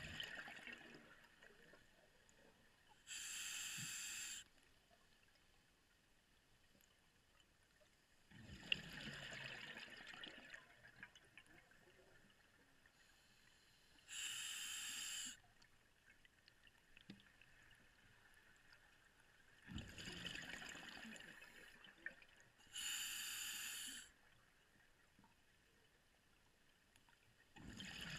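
Scuba diver breathing through an open-circuit regulator underwater. Three short, even hisses of air drawn through the demand valve, each just over a second long, alternate with longer, uneven rushes of exhaled bubbles, about one breath every ten seconds.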